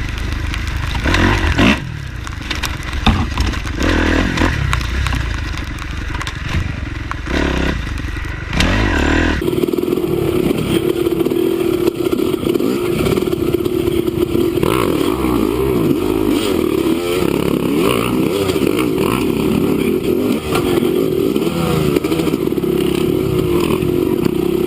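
Dirt bike engine revving while riding, with heavy wind rumble on the microphone and knocks and clatter. About nine seconds in, the sound changes abruptly to an engine running at a steady, slightly wavering pitch.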